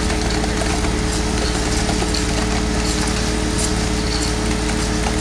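Small engine or motor running at a steady speed, driving a roller screed tube as it is pulled across wet concrete to level the slab.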